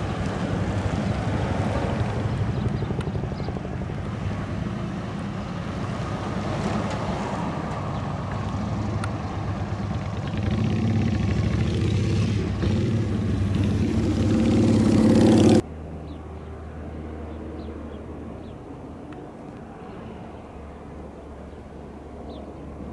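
Ford ambulance van and following vehicles driving off, engine noise growing louder and brighter as they accelerate past, then cutting off suddenly about two-thirds of the way through. After that, a quieter steady low engine rumble.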